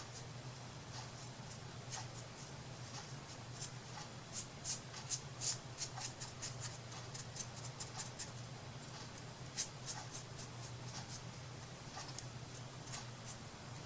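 Short, scratchy strokes of a paintbrush on a wooden craft piece, coming irregularly several times a second and busiest in the middle, over a steady low hum.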